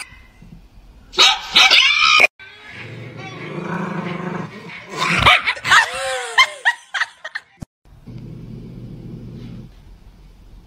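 Small dogs barking and growling: a few sharp barks about a second in, then low steady growling, high yips and whines in the middle, and more low growling near the end.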